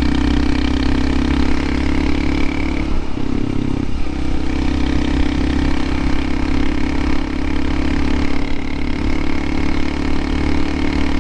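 Honda CT125 Hunter Cub's air-cooled single-cylinder engine running steadily while riding, heard from on the bike; its pitch dips briefly about three seconds in, then settles back.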